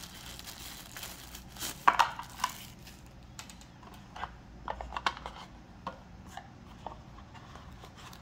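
A plastic packaging bag crinkling as it is handled, with a few sharp clicks about two seconds in. After that come scattered light taps and knocks as the cardboard box, its foam insert and the light are moved about on a stone countertop.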